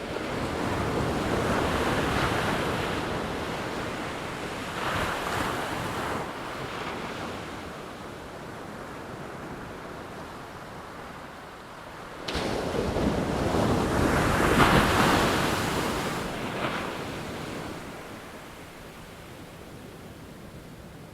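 Ocean waves breaking and washing in, in swells: one builds just after the start and fades, a smaller one follows about five seconds in, then a louder wave comes in suddenly about twelve seconds in and washes out over several seconds.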